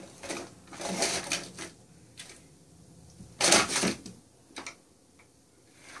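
A plastic cat track toy rattling as a cat bats the mouse around inside its track: a run of short clattering bursts, the loudest about three and a half seconds in.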